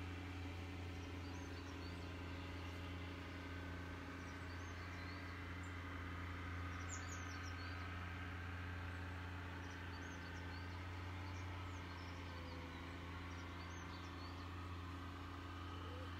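Steady low mechanical drone with a few fainter hum tones above it, and small birds chirping over it here and there, most around seven seconds in and again between ten and fourteen seconds.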